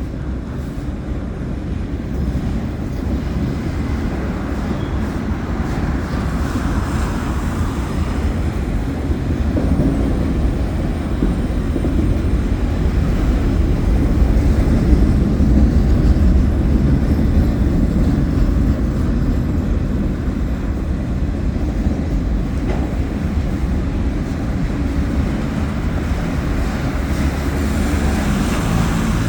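A train passing close by, a steady low rumble of rolling rail cars that grows louder around the middle.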